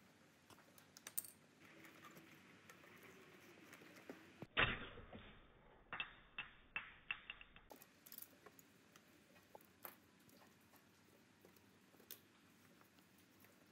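Small clicks and knocks from the plastic and metal parts of an old stereo radio being handled during disassembly. One louder knock comes about four and a half seconds in, followed by a quick run of clicks.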